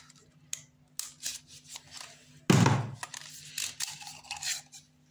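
Hands handling drill bits and clear plastic bit sleeves: scattered plastic rustles and clicks, with one loud thump about two and a half seconds in, over a faint steady low hum.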